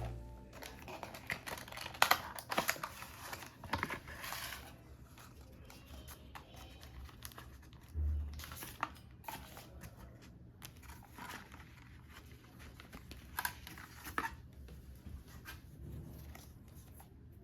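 Quiet handling sounds: light crinkling and rustling with scattered taps and clicks, and a soft low thump about eight seconds in.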